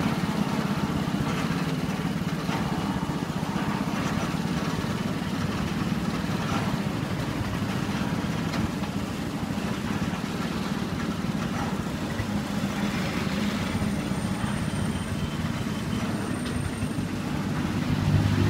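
Steady low engine hum, like a motor vehicle idling nearby, under a constant wash of street noise.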